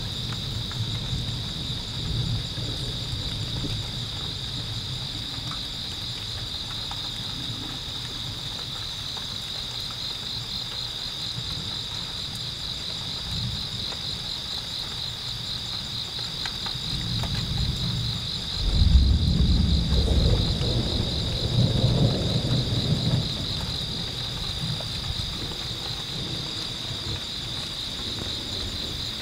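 Thunder rumbling low during a rainstorm, swelling to its loudest about two-thirds of the way through before dying back. A steady high, pulsing chirp of insects runs underneath.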